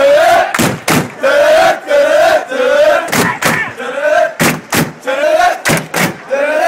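A crowd of hockey fans chanting together, the same short shouted phrase repeating about once a second, with loud sharp hits, often in pairs, in time with the chant.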